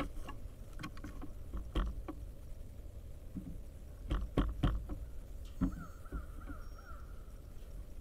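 Pileated woodpecker's bill knocking and tapping at a bird feeder as it feeds: irregular sharp knocks, with a quick run of three a little past halfway. Near the end a bird gives a wavering call.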